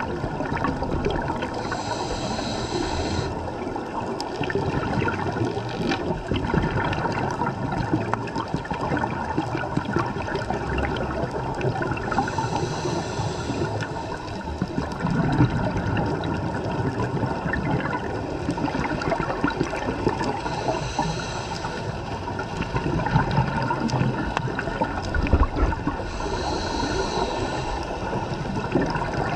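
Scuba diver breathing through a regulator underwater: a short hiss of air on each inhale, four times, with the gurgle of exhaled bubbles in between.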